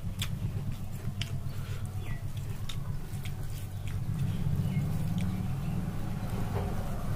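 A person chewing while eating a meal of rice and fish curry, with scattered small mouth clicks over a steady low hum.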